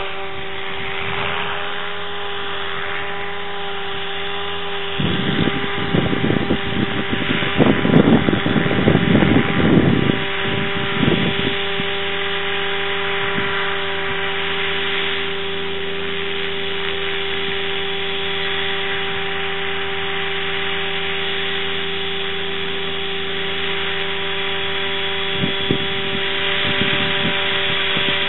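A motor running with a steady hum, with a stretch of rough, irregular low rumbling about five seconds in that lasts several seconds.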